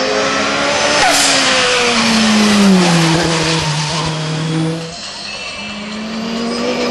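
Lancia Delta Integrale hillclimb car passing at speed under hard acceleration, its engine note falling as it goes by. After a break about five seconds in, the engine is heard again, its pitch rising as the car accelerates up the course.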